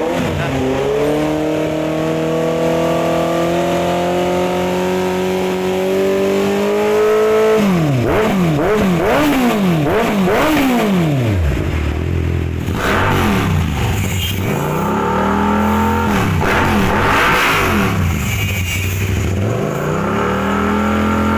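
Honda CB650R's inline-four engine revved through a Villain R11 slip-on muffler: first a held rev that climbs slowly for several seconds, then a run of quick throttle blips, each rising and falling, then a few slower revs.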